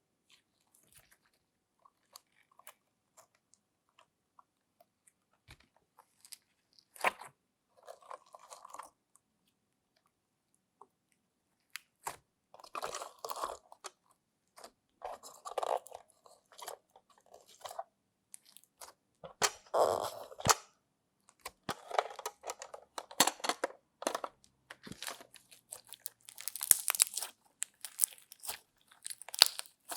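Slime being squished and worked by hand, giving irregular crackles and clicks. They are sparse at first and grow busier and louder from about halfway through.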